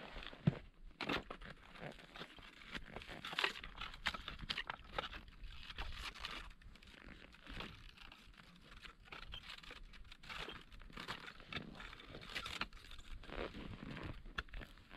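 Ice and snow crunching and scraping as a hole in river ice is worked at by hand with a tool: irregular crunches, scrapes and sharp clicks.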